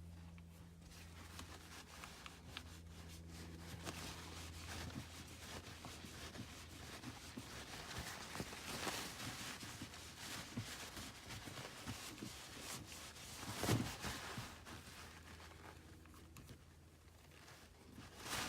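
Paper towel soaked in rubbing alcohol rustling and scrubbing against a car's manual shift knob, with one sharper knock about fourteen seconds in.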